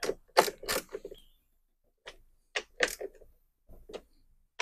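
A hand wrench tightening the cover nuts on a Honda GCV190 mower engine: short metallic clicks and scrapes, three close together at the start, then a few more spread out.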